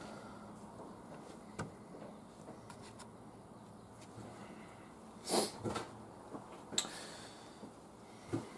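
Quiet workshop room tone with a few faint clicks. A little past halfway comes a short breathy burst, then a smaller one, then a sharp click: handling noises as the filter job begins.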